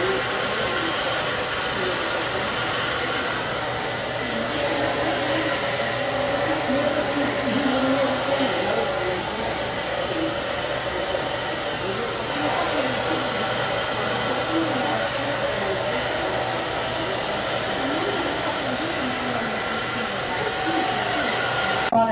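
Handheld hair dryer blowing steadily, drying wet hair, with a faint steady motor hum under the rush of air; it cuts off suddenly at the very end.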